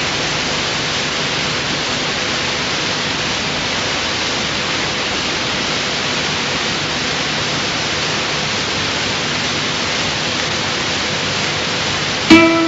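Steady, even hiss like static, with no pitch or rhythm. Near the end a plucked guitar note starts sharply and rings on.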